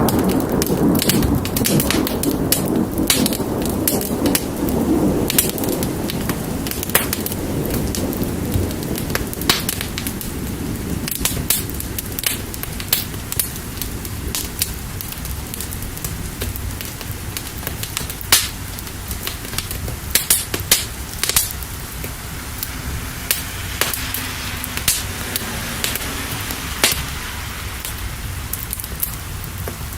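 Wood fire crackling with frequent sharp pops over steady rain. A low rumble of thunder fades out over the first few seconds.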